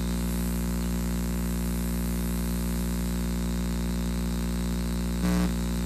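Steady electrical hum and buzz on a wired microphone line: interference that may come from the cable or from the dog stepping on the cord. The buzz briefly gets louder a little after five seconds in.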